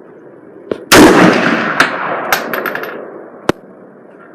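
A single gunshot about a second in, its report dying away over about two seconds, followed by a few light clicks.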